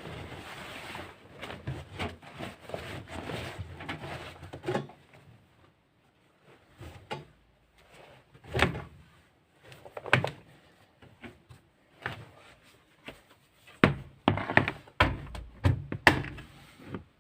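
Household handling noises: a rustling, rubbing noise for the first few seconds, then separate thuds and sharp clicks, like doors, cupboards and objects being knocked and set down.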